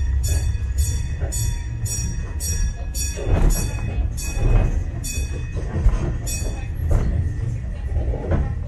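Steam tram carriage rolling along metre-gauge rails, heard from inside: a steady low rumble with a few heavier knocks of the wheels over the track.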